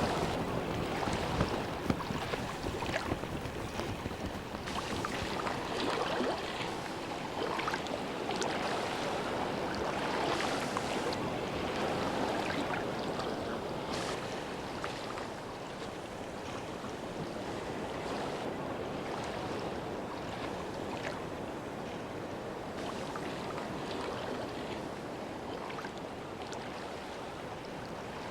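Sea water washing and splashing in small waves, a continuous wash with scattered sharper splashes, easing slightly in the second half.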